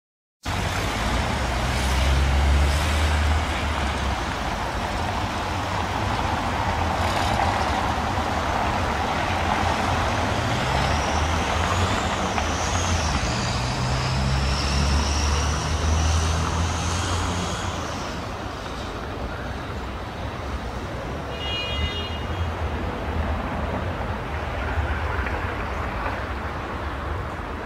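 City street traffic: vehicles running and passing with a steady low rumble. About ten seconds in, a high squeal wavers up and down for several seconds.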